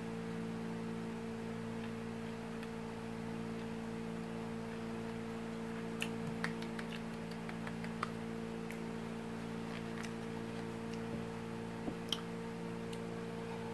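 A steady electrical hum of several pitches in a small room, with a few faint, short mouth clicks and lip smacks in the second half as chocolate is chewed and tasted.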